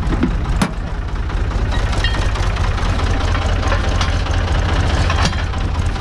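Tractor engine idling with a steady low rumble, broken by a couple of sharp clicks, one about half a second in and one near the end.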